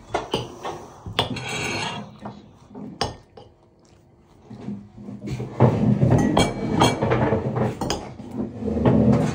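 Metal forks clinking and scraping on ceramic plates as noodles are eaten, with a few sharp clicks. A busier stretch of scraping and handling noise comes in the second half.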